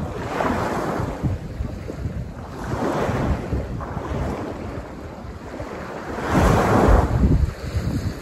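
Wind buffeting the microphone in gusts over the wash of sea waves, swelling and easing every two to three seconds, loudest a little past halfway.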